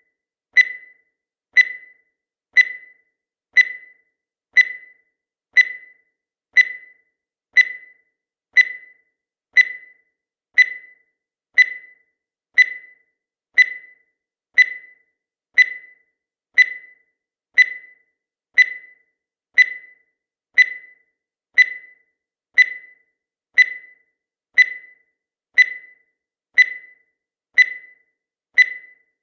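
Countdown timer sound effect: a short, sharp pitched tick once every second, each dying away quickly, at an even level and steady pace.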